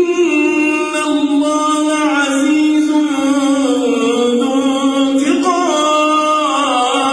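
Unaccompanied solo voice singing in long, drawn-out notes that bend in pitch, with brief breaks about a second in and again about five seconds in.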